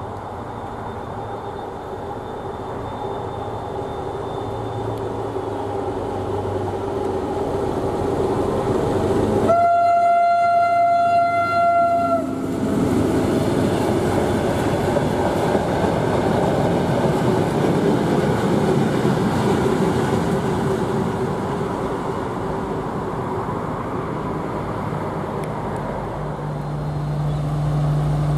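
Diesel shunting locomotive approaching and passing with a train of hopper wagons, its engine running. About ten seconds in it sounds its horn, one steady note for about three seconds, and the wagons then rumble and clatter past. Near the end a deeper steady engine drone comes in.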